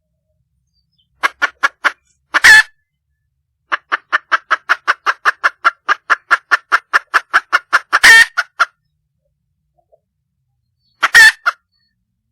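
Wild junglefowl hen calling: runs of short clucking notes, the longest a fast series of about five notes a second lasting some four seconds, broken by three loud harsh squawks. This is the call a hen makes to attract a mate.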